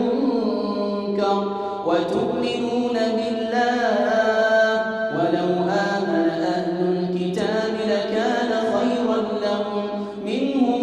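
Wordless vocal chanting: long, ornamented notes that bend and waver, sung in phrases of about three seconds.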